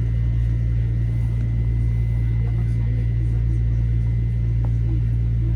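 Metro-North M7A electric train car's steady low hum with a thin, constant high whine, heard from inside the car while the train stands at a station.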